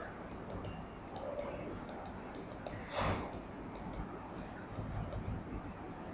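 Faint, irregular clicks and taps of a stylus writing on a tablet PC screen over steady low room noise, with one brief louder rustle about three seconds in.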